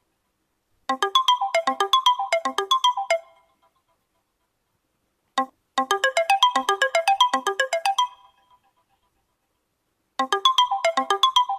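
UMX phone alert tone: a quick run of electronic notes, about seven a second for some two seconds, repeated three times with pauses of about two seconds between, plus one short blip just before the second run.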